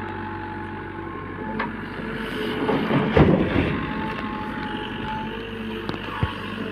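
Diesel engine of a JCB backhoe loader running steadily under work, with a louder rough surge about three seconds in.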